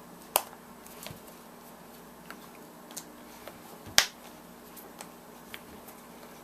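Sharp clicks and ticks from handling a David Clark Model 310 earmuff cup as a new ear cushion is worked onto its rim, with two louder snaps about half a second and four seconds in and smaller ticks between.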